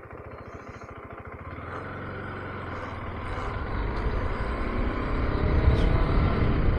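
KTM 390 Adventure's single-cylinder engine ticking over, then pulling away and accelerating, getting steadily louder. A low rushing rumble builds toward the end as speed picks up.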